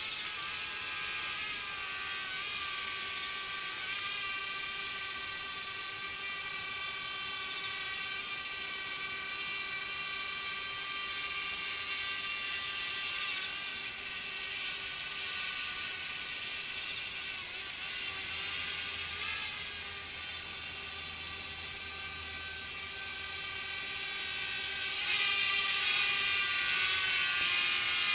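Camera drone's propellers whining steadily while it hovers, with a slight wavering in pitch, growing a little louder near the end.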